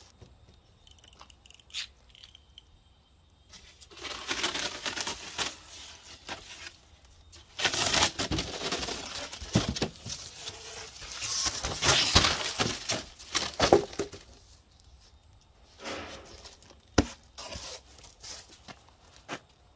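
Sheet of rigid foam insulation board being cut and handled: scraping, squeaking and rubbing in long bursts, with a few sharp snaps and knocks.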